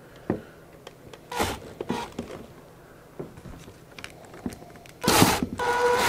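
A few light handling clicks and scrapes, then near the end a cordless drill-driver runs briefly with a steady whine, driving a screw into the vacuum's plastic power-head housing.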